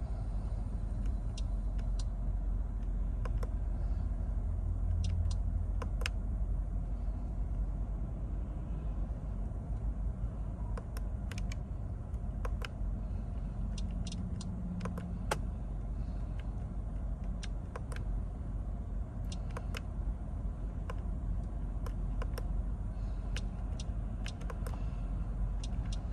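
Low steady rumble inside a car cabin, with scattered sharp clicks from the steering-wheel buttons being pressed to step through the service menu.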